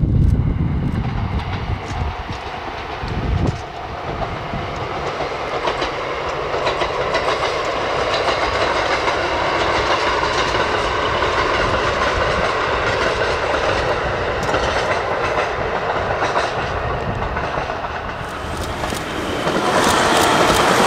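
KiHa 183 series diesel train running on the rails, a steady rolling noise that grows louder near the end with a run of clicks.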